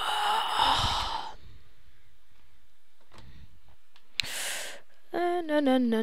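A person sighing and breathing close to the microphone, with a sharp click about four seconds in and a short voiced hum that falls in pitch near the end.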